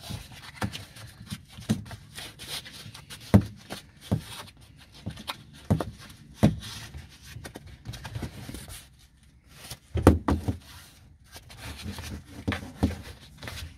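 Irregular knocks, taps and clicks of a bracket and its parts being handled and fitted by hand, with louder knocks about three and a half, six and a half and ten seconds in.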